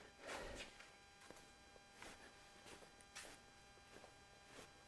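Near silence with a faint hum and scattered light clicks and clinks of a hand wrench being handled on a bolt. A brief, slightly louder scrape comes about a third of a second in.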